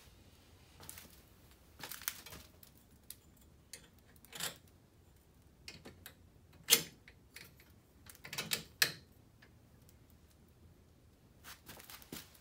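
Scattered light clicks, knocks and rattles of hands handling metal parts on a utility vehicle's radiator mount, with two sharper knocks about seven and nine seconds in.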